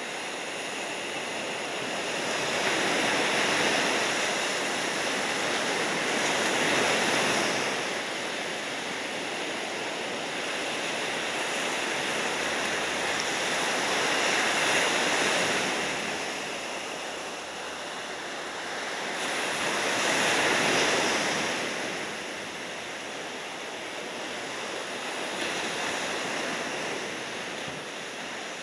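Ocean surf: waves breaking and washing in, the noise swelling and easing every few seconds.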